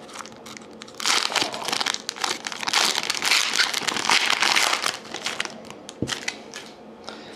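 A 2011-12 Panini Titanium hockey card pack's wrapper being torn open and crinkled by hand. The crinkling is loudest from about a second in until about five seconds, then eases off, with a single knock near the end.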